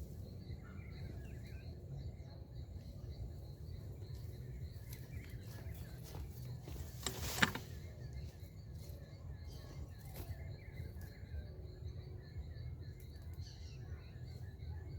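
Small birds chirping on and off, with a steady high insect tone and a low rumble underneath. One sharp knock about halfway through stands out as the loudest sound.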